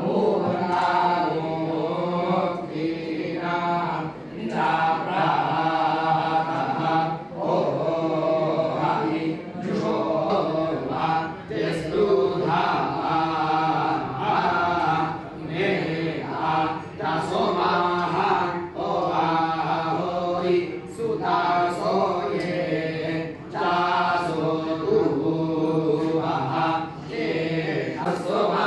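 Several men chanting a scriptural parayana recitation in unison, a steady intoned chant in short phrases with brief breaks between them.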